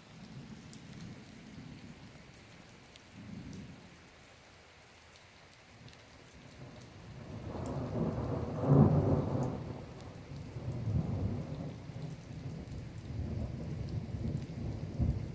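Thunder rumbling over steady rain. A low rumble builds from about six seconds in to its loudest peak near nine seconds, then keeps rolling in waves.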